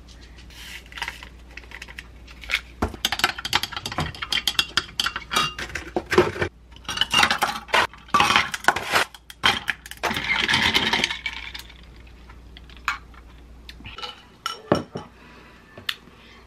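Ice cubes and a stirrer clinking against a tall drinking glass as iced instant coffee is made, in a quick run of clinks and knocks. Near the end, a few soft keyboard clicks.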